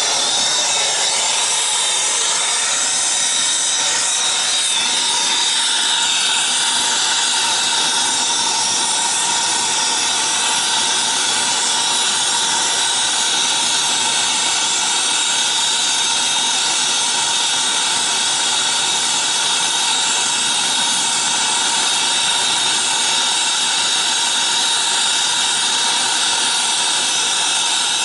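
Brazing torch flame hissing steadily, with a faint whistle over the hiss, while heating copper refrigerant line joints.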